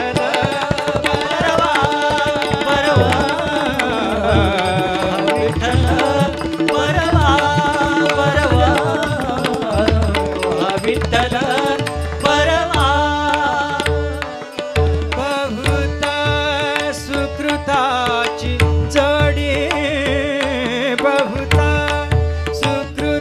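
A male voice sings long, ornamented melodic phrases of a Marathi abhang, over tabla and pakhawaj drumming with repeated deep bass strokes. A harmonium holds a steady note underneath.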